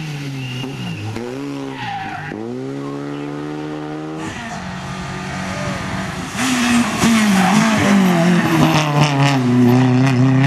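Rally car engines on a tarmac special stage: a hatchback's engine revving up and dropping back through gear changes as it drives along, then a Renault Clio rally car's engine, louder from about six seconds in, revving hard as it takes a bend and passes close by, with a noisy rush over the engine note.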